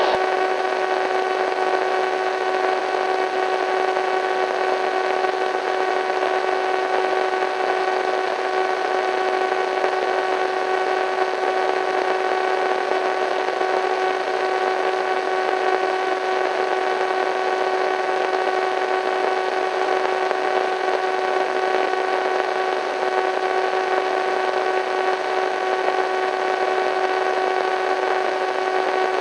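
Radio static: a steady hiss of white noise with a steady hum of several tones running through it.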